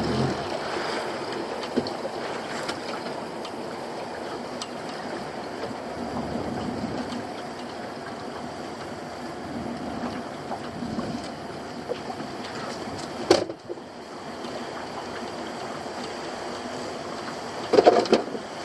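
Steady wash of water around a small fishing boat at sea, with a sharp knock about two-thirds of the way through and a quick cluster of knocks near the end.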